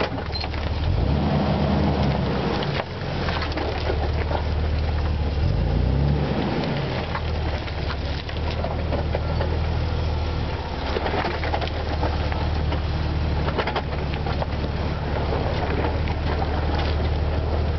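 Jeep engine running at crawling speed, revving up briefly about a second in and again around six seconds, while its tyres crunch and crackle over clay, mud and sticks in a rutted trail.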